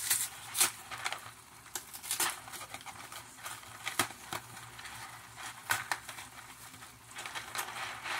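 Cardboard box of Deluxe mac & cheese being torn open at its top flap by hand: irregular sharp cracks and crinkles of the paperboard, several a second.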